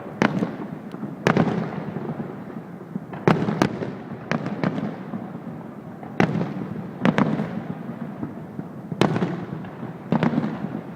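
Aerial fireworks shells bursting: about ten sharp bangs at uneven intervals, each trailing off in a rumbling echo.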